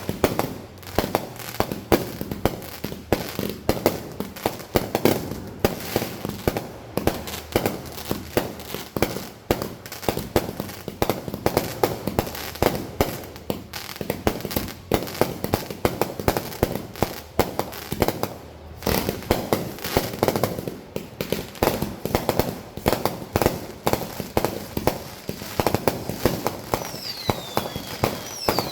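Rapid, continuous bangs and crackling of consumer fireworks going off, many at once. A few falling whistles near the end.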